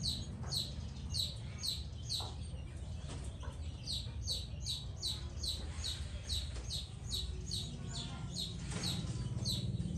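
A bird chirping in a fast, even series of short high notes, about two or three a second, over a steady low hum.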